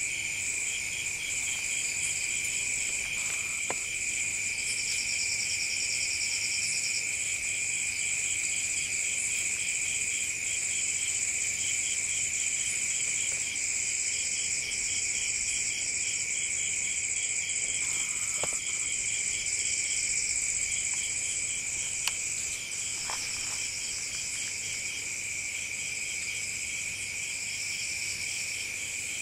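Night chorus of several singing insects: steady shrill trills at two pitches, a pulsing chirp at about four pulses a second, and a higher buzzing trill that comes and goes every few seconds. A few faint clicks are scattered through it.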